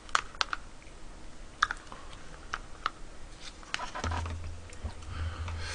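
Light, scattered clicks and taps of a spoon scooping seasoning sauce out of a small packet onto a bowl of rice. A low steady hum comes in about four seconds in.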